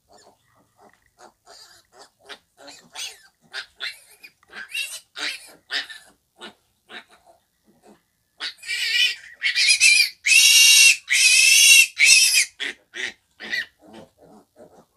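Piglet grunting in short, rapid grunts, then squealing loudly for about four seconds starting just over halfway through as the needle goes into its neck muscle for an injection, then grunting again.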